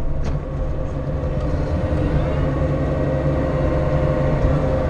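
Bobcat E42 compact excavator's diesel engine running steadily under work, with a constant hydraulic whine over the low engine hum, heard from inside the cab.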